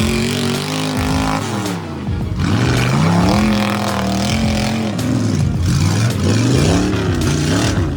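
A vehicle engine revving, its pitch rising and falling repeatedly.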